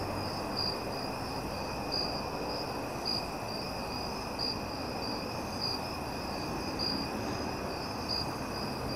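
Steady chorus of night-singing insects: a continuous high buzz with a higher trill pulsing about once a second.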